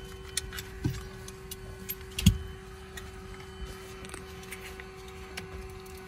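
Steady, subdued hum of the Aero Commander L-26B's twin piston engines while it taxis, with a few short clicks and knocks, the loudest about two seconds in.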